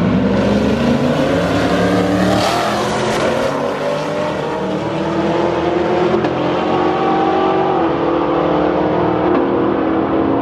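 Two cars at full throttle pulling away down a drag strip from a rolling start, one of them a 1000 hp Camaro ZL1 with a supercharged V8. The engine notes climb and drop back at each upshift.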